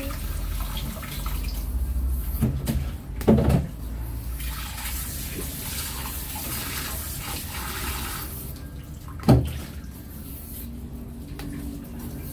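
Water running and splashing, with a loud knock about three seconds in and a sharp knock about nine seconds in.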